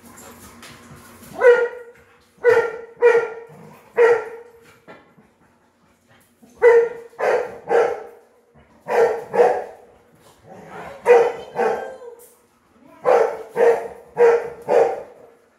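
A dog barking repeatedly in short runs of two to four barks, with brief pauses between the runs.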